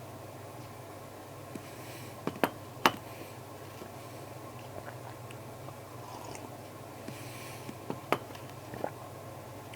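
A steady low hum with a handful of short, sharp clicks or taps: a pair and a single a couple of seconds in, and another pair and a single near the end.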